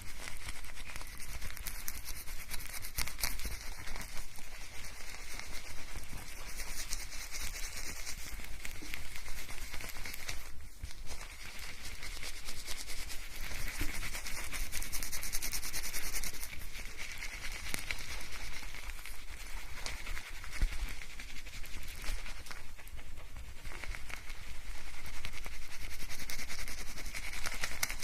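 Hair being washed with shampoo: fingers scrubbing and working lather through wet hair, a close, continuous crackling and squishing of foam, with brief lulls a third of the way in and again near the end.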